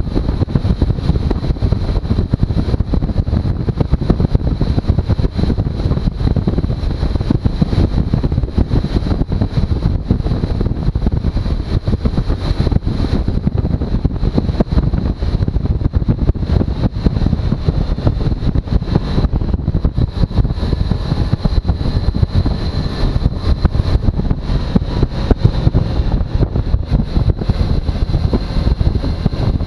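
Suzuki V-Strom motorcycle being ridden, its engine running steadily under heavy wind buffeting on the microphone.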